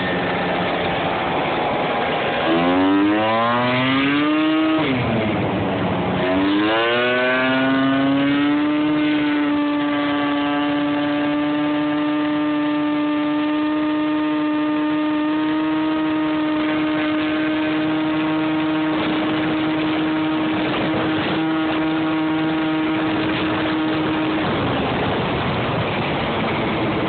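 Scooter engine running under way. It revs up twice in the first several seconds with a brief drop between, as the scooter accelerates. It then holds a steady pitch at cruising speed for most of the time and eases off near the end.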